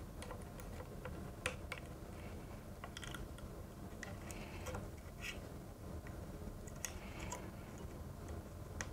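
Faint, irregular small metallic clicks and scrapes of a steel pick prying a circlip out of its groove in a suspension fork's axle dropout.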